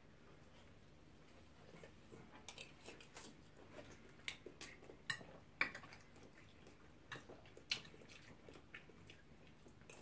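Metal spoons and forks clinking and scraping against a glass serving platter as people scoop rice and stew, a scatter of light clicks over quiet room tone, a few sharper ones about four, five and eight seconds in.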